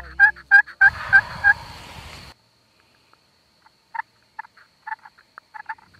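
Turkey pot call worked with a wooden striker, giving a run of sharp hen yelps about three a second over the tail of background music, which cuts off about two seconds in. From about four seconds, a few softer, irregular yelps and clucks come from the call.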